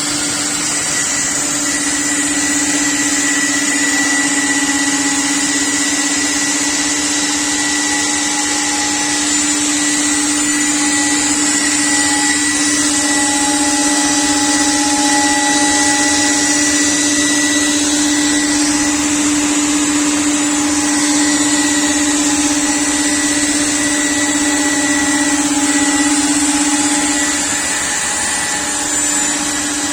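CNC panel router running steadily while cutting wardrobe board: a steady machine hum over a loud high hiss, the hum wavering briefly near the end.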